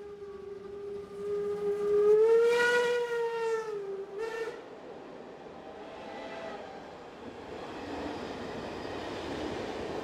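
Steam whistle of the DB class 64 tank locomotive 64 518 sounding one long blast that swells to its loudest about two seconds in and stops near four seconds, followed by a short toot. The train then rolls past, its running noise growing toward the end.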